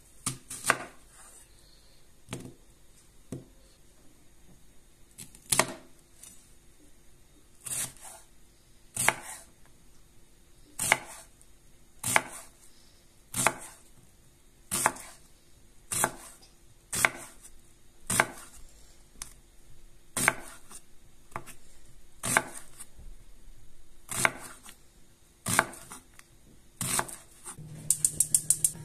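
Chef's knife slicing a red onion on a wooden cutting board, one crisp chop about every second. Near the end, a quick run of clicks from a gas stove's igniter.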